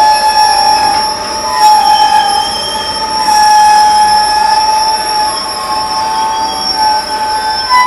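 Wheels of rolling freight tank cars squealing against the rails: several high squealing tones that waver and overlap.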